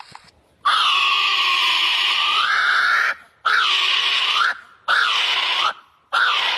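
A bird giving loud, harsh screaming calls: one long call of about two and a half seconds, then three shorter ones, each ending with a dip and rise in pitch.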